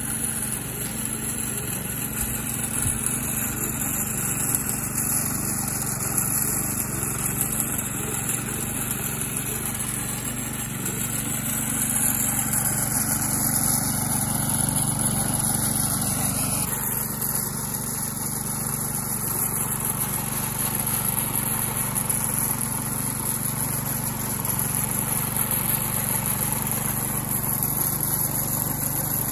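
Homemade radio-controlled lawn mower driving over gravel, its 24 V gear motors fed through a BTS7960 driver board under a load test: a steady mechanical hum.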